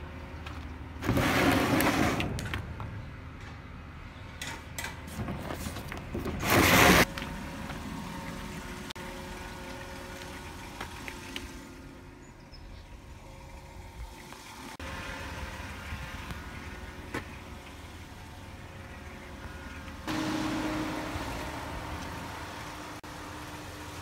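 Handling noise from rummaging through trash in dumpsters. There are two loud noisy bursts, one about a second in that lasts over a second and a shorter one near seven seconds, and scattered light clicks, all over a steady low hum.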